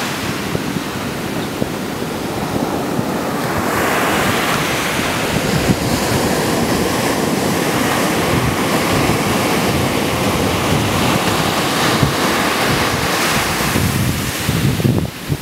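Ocean surf breaking and washing ashore, with wind buffeting the microphone. A wave's wash swells up about four seconds in and carries on steadily.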